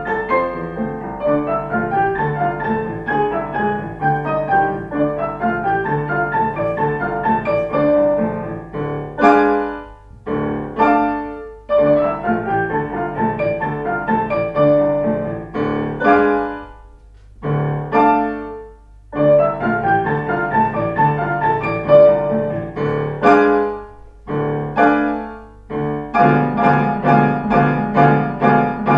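Piano playing a lively piece. Runs of quick notes are broken several times by loud, separated chords with short pauses between them, and fast repeated chords come near the end.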